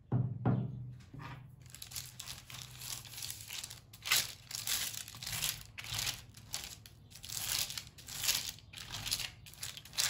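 A silicone pastry brush spreads oil over parchment paper in a metal baking tray. The paper crinkles and rustles with each stroke, about one a second, after a low knock at the start.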